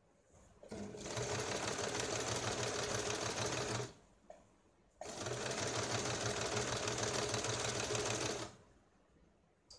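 Small electric sewing machine stitching in two steady runs of about three seconds each, stopping briefly in between, as a folded fabric edge is sewn down.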